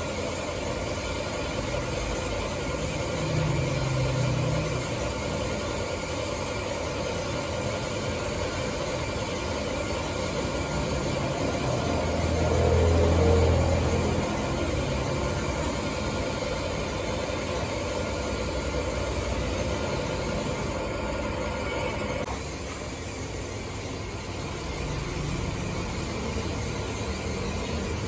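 Steady hiss of a compressed-air spray gun spraying paint onto an alloy wheel, with a steady machine drone underneath. The sound changes abruptly about 22 seconds in, losing its highest part.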